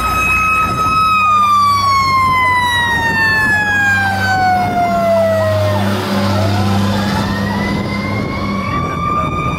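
Fire truck sirens on an American LaFrance aerial ladder truck responding to a call. One siren holds high, slowly winds down over about five seconds, then winds back up near the end, over a faster warbling siren. The truck's engine runs steadily underneath.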